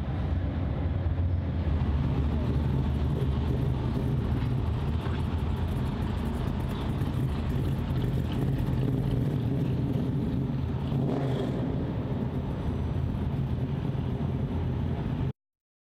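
A car engine running steadily with a low rumble, which cuts off suddenly near the end.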